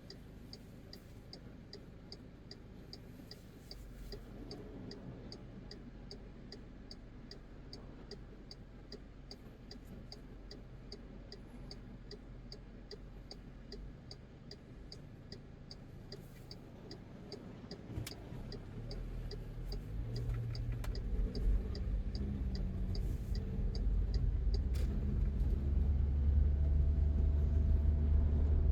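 Car turn-signal indicator ticking steadily over a low engine rumble. The ticking stops a little past halfway, and the engine and road rumble then grow steadily louder as the car speeds up.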